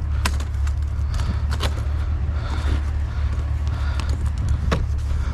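Scrap aluminum being knocked and worked loose by hand to break a piece off, giving a few sharp irregular knocks with scraping between them, over a steady low hum.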